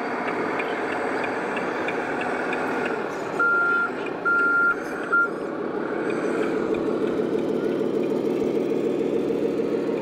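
Radio-controlled model truck's sound module giving three high reversing beeps about three and a half seconds in, two of about half a second and a short third, over a steady diesel-engine sound that settles into an even drone in the second half.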